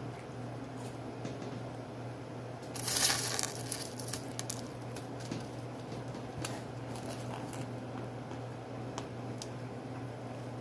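Dry, powdery white chunks being broken and crumbled by hand over aluminium foil. A loud crunch comes about three seconds in, then scattered small crinkles and clicks, over a steady low hum.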